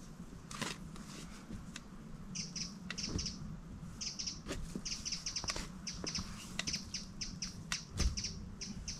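A steel spade digging into garden soil, with scattered scrapes and thuds and one heavier thud near the end. From about two seconds in, a small bird chirps over and over in quick runs of short notes. A steady low hum runs underneath.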